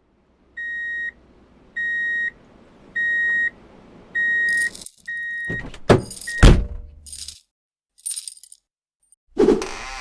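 An electronic beep sounds five times, about once a second and getting louder. It breaks off in a clatter of loud knocks with a falling tone, then hissy rattling. A loud, dense noise starts near the end.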